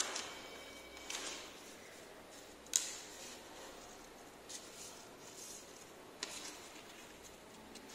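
Scissors cutting coloured paper: a few faint snips and paper rustles, the sharpest click a little under three seconds in.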